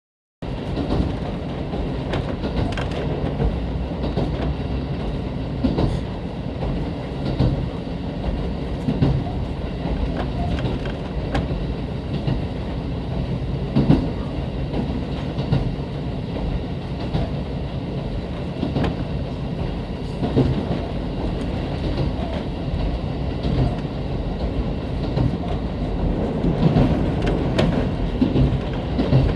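Train running on the Soya Main Line, heard from inside the carriage: a steady rumble of the running gear and engine with occasional sharp clicks of the wheels over the rails.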